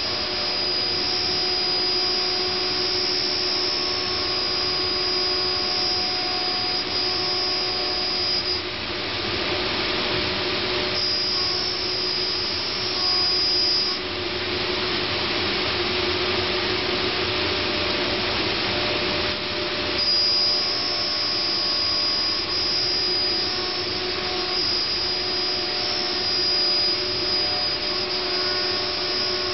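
Multicam 3000 Series CNC router running with its dust collector: a steady loud rushing with a high whine that drops out twice and comes back.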